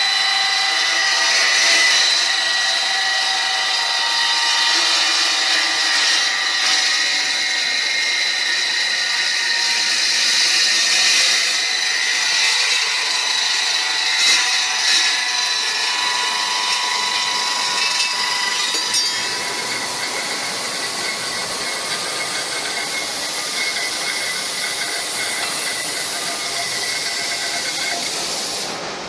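A power tool running with a steady high whine; about two-thirds of the way through the whine eases and the sound gets a little quieter.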